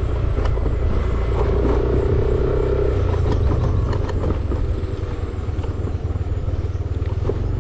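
Motor scooter running along a rough dirt road: a steady engine and road rumble with scattered short knocks and rattles from the bumps.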